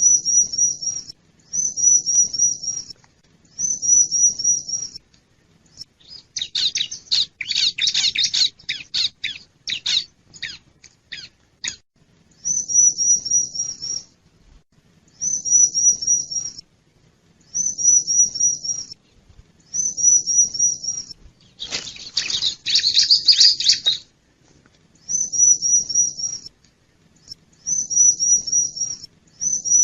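Bar-winged prinia (ciblek) song played as a lure call: short, high, rapid phrases repeating about every two seconds. Around six seconds in and again around twenty-two seconds in come bouts of harsher, scratchy chattering.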